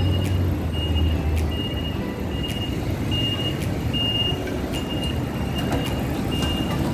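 City street traffic rumbling by, with a high electronic beep repeating about one and a half times a second. A deep engine hum stops about a second and a half in.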